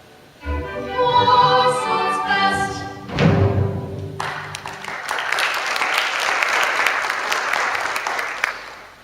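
A stage musical number ends: a group of voices sings a final phrase over accompaniment and closes on a loud final chord, then an audience claps for about four seconds.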